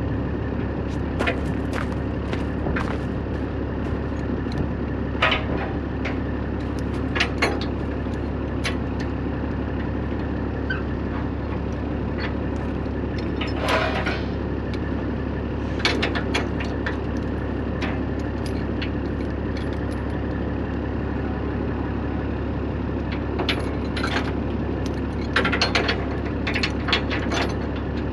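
Semi truck's diesel engine idling steadily, with chains clinking and clanking in scattered bursts as a dozer blade is chained down to a lowboy trailer. The clanks are loudest in a cluster near the end.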